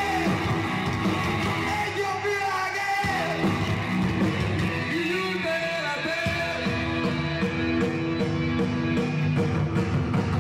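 Rock music: a singer's voice over a full band.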